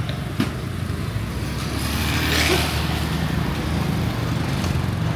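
Street traffic: motor vehicle engines running steadily, with one vehicle passing close and swelling loudest about two and a half seconds in.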